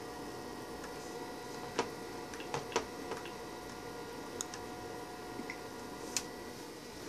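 Irregular sharp clicks of handheld controller buttons being pressed, several spread over a few seconds, over a steady faint electrical whine.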